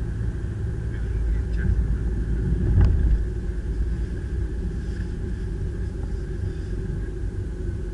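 A car driving, heard from inside the cabin: steady low road and engine rumble, with a short knock about three seconds in.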